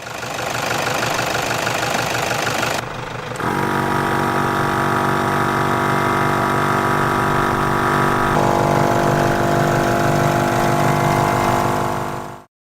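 A rushing noise for about three seconds, then an engine running with a steady, many-toned note that shifts about eight seconds in and cuts off suddenly near the end.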